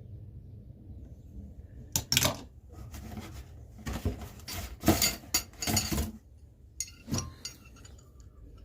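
Metal hand tools clinking and clattering as they are handled and moved about in a box: a run of sharp knocks with a short ring, the loudest about two and five seconds in.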